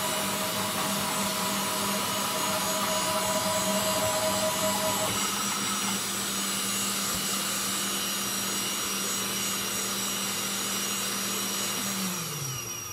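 Stepper motors of a homemade CNC router whining steadily as the machine drives its axes back to the zero point. A higher tone drops out about five seconds in, and the remaining tone falls in pitch and stops near the end as the machine slows to a halt at zero.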